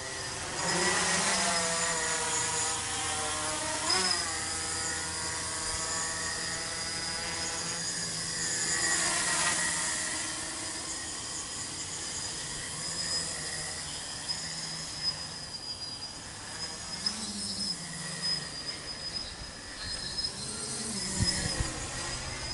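Small tricopter in flight: three brushless 2216 900kv outrunner motors spinning 8x4.5 carbon-fibre propellers, making a buzzing whine whose pitch rises and falls several times as the throttle changes.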